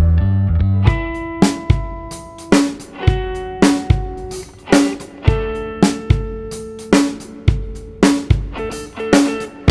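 Background music: a guitar-led band track with a steady drum beat.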